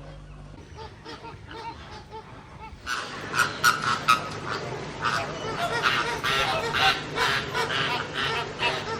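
A flock of aviary waterbirds calling. A few scattered calls at first, then about three seconds in a loud chorus of many overlapping calls starts suddenly.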